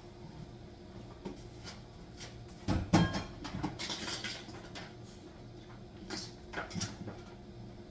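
Kitchen handling noises: a few clicks and knocks, the loudest about three seconds in, and a short hiss about a second later, over a steady low hum.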